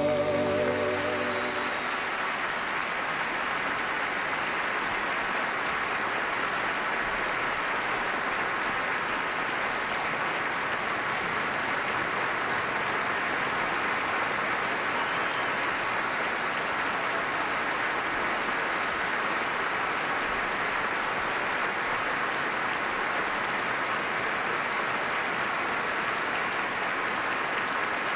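A large audience applauding steadily, with the tail of a song fading out in the first two seconds.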